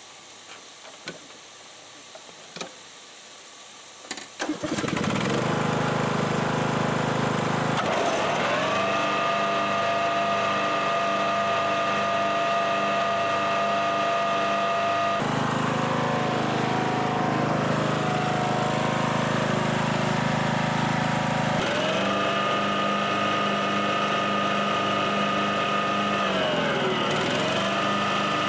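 A few small clicks, then a Husqvarna riding mower's engine starts about four seconds in and runs steadily. A few seconds later a steady high whine from the engaged mower deck joins it; it shifts partway through and dips briefly near the end. The deck's blades are spinning with a garden hose feeding its washout port to wash out the underside.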